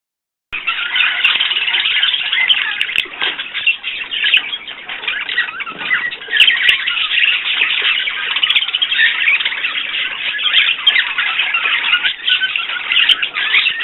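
Many small pet birds chattering and chirping together in a dense, continuous chorus of overlapping calls, starting about half a second in.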